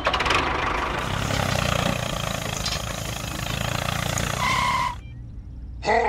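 A steady motor running as a toy tractor drives through sand, with a brief high tone just before the sound drops away about five seconds in.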